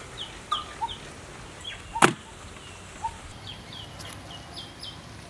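Small birds chirping in short, high, falling notes about every half second, with one sharp knock about two seconds in.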